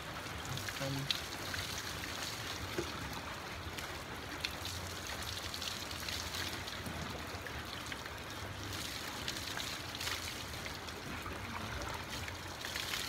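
Water from an outdoor tap running steadily into a plastic bucket, mixed with water poured over a person's head trickling and splashing onto the concrete as hair colour is rinsed out.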